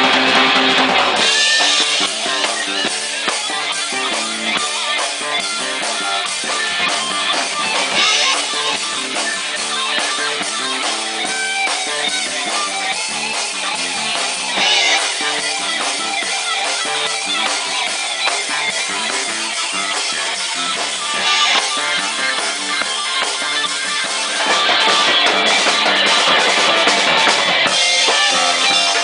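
A rock band playing live: drum kit and electric guitar over bass in a steady groove, swelling louder again near the end.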